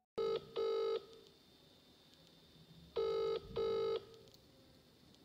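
Phone call ringing tone: a double ring near the start and another about three seconds in, with a gap of about two seconds between.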